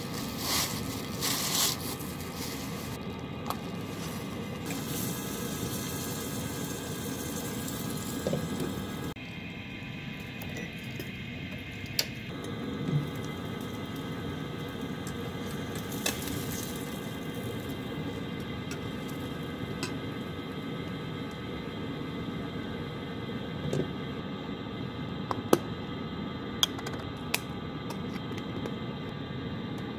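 Steady background hum and hiss of a kitchen, broken by a few sharp clicks and soft knocks of dishes and utensils being handled.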